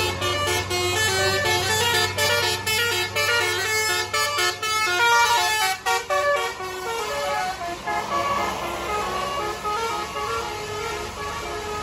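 Bus's Basuri telolet musical air horn playing a tune of quick stepped notes, over the bus's engine running. The engine hum fades about halfway through while the horn tune goes on.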